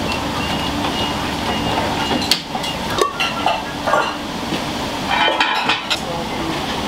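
Ramen-shop kitchen at work: a steady rushing background noise with scattered knocks and clinks of bowls and utensils, and a short rattling clatter about five seconds in.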